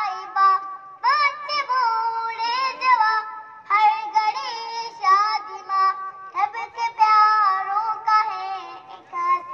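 A child's high singing voice carrying a melody, phrase after phrase, with music.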